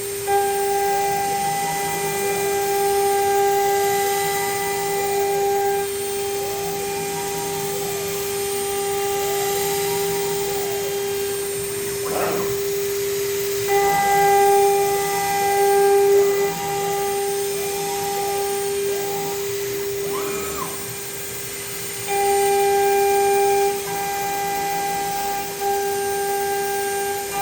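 CNC router running a cut: the 3.5 kW spindle whines steadily at 24,000 RPM while the NEMA 34 closed-loop stepper motors drive the axes, their pitch rising and falling in repeated arcs about every two seconds. There is a short knock about twelve seconds in.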